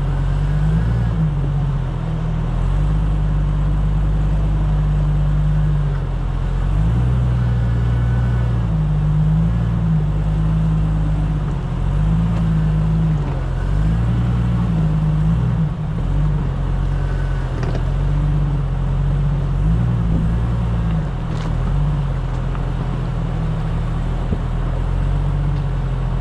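Off-road vehicle's engine running at low speed as it crawls up a rocky trail, its pitch holding and then shifting up and down every few seconds as the throttle changes.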